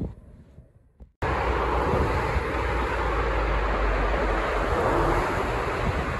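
Steady loud roar of traffic echoing through a road tunnel, with a deep rumble underneath; it cuts in abruptly about a second in after a moment of near quiet.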